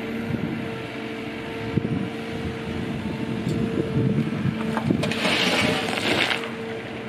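Liebherr excavator's engine and hydraulics running steadily, with scattered knocks and clanks from the bucket. About five seconds in, a rush of dirt pours out of the raised bucket for about a second and a half.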